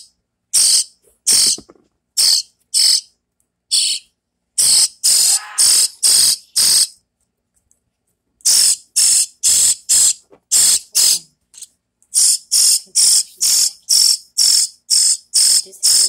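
Nestling songbird giving shrill begging calls: short high-pitched cheeps about two a second, in bouts with brief pauses, as it gapes for food.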